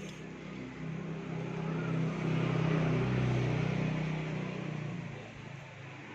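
A motor vehicle passing by: a low engine drone that grows louder to a peak about three seconds in and then fades away.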